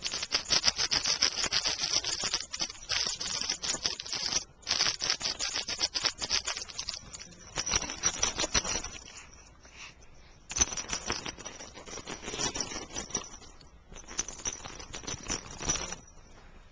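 Small pet rustling and scratching about: dense, rapid crackling and scraping in several stretches, broken by short pauses.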